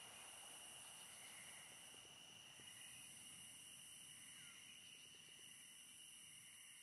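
Near silence with a faint, steady, high-pitched chirring of insects.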